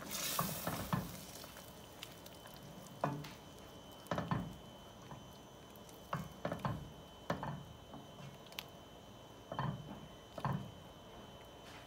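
Wooden spoon stirring a thick, chunky butter sauce in a stainless steel pot, in short, irregular strokes that swish and squish through the liquid.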